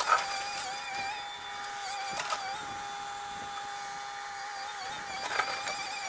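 A steady, slightly wavering high-pitched machine whine with a few faint clicks.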